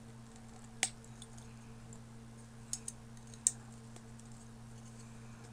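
A few small plastic clicks as the wing is pressed into the fuselage of a Flight Miniatures snap-together Boeing 737 model: a sharp click about a second in, two faint ticks near three seconds and another sharp click just after. A steady low hum lies underneath.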